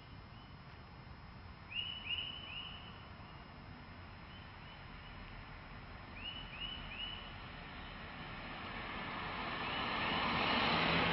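A Buick LaCrosse sedan drives up and passes, its tyre and engine noise swelling over the last few seconds and loudest near the end. Before that, a bird chirps in quick runs of three over a quiet background.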